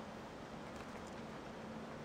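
Faint steady background noise with a low hum and a few faint ticks.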